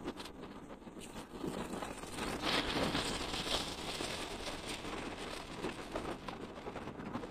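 Steady rushing noise of riding on a concrete road: wind on the microphone and road-bike tyres hissing on the rough surface, growing louder about two seconds in.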